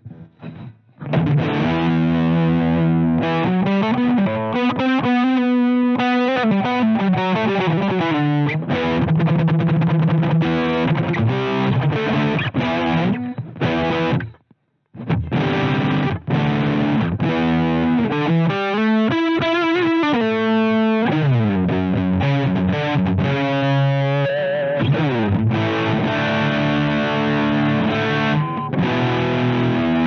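Electric guitar played through a Twinote Boogie Distortion pedal, switched on: distorted riffs and chords with sliding notes. The playing starts about a second in and stops briefly about halfway through before carrying on.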